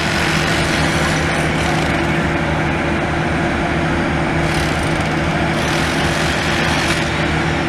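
A heavy machine's engine running steadily at a constant speed, with a low pulsing rumble and a steady hum.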